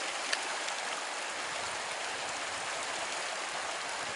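Creek water rushing steadily, an even hiss, with a single sharp click about a third of a second in.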